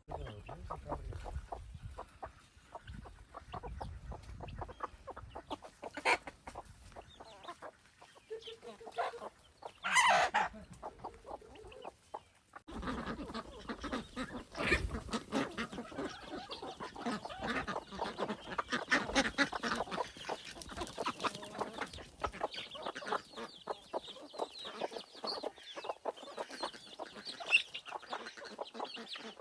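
Chickens clucking, with one short, louder sound about ten seconds in.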